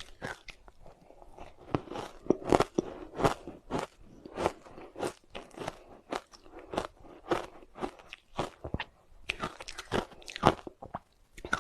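Soft ice with matcha powder being bitten and chewed close to the microphone: a run of sharp, crisp crunches, about one to two a second, with softer chewing between them.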